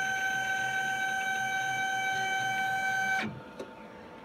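IS400 engraver's spindle running with a steady high whine, then cutting off abruptly about three seconds in, followed by a faint click.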